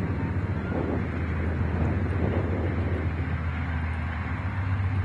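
Wind buffeting the camera microphone, a steady low rumble.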